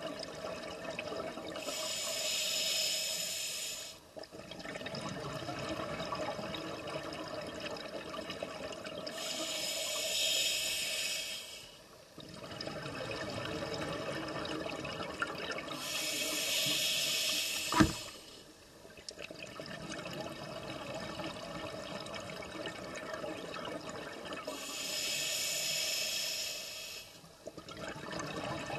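Scuba regulator breathing underwater: four bursts of exhaled bubbles, each about two and a half seconds long and some eight seconds apart, with quieter inhalations between. One sharp click comes about two-thirds of the way through.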